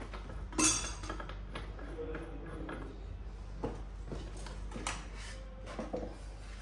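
Metal clinks and knocks from handling the steel cover plate and bushing parts of a distribution transformer's low-voltage bushing. One sharp clink about half a second in, then a few lighter taps.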